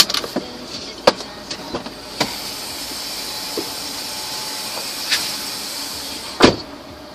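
Steady hiss heard from inside a car, broken by several sharp clicks and knocks. A loud knock comes near the end, and the hiss drops away after it.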